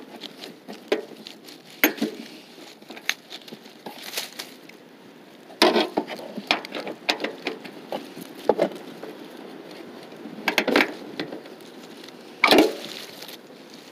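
Irregular clicks, taps and scrapes of hand work at a car's fender and wheel well, with a few louder knocks spaced several seconds apart.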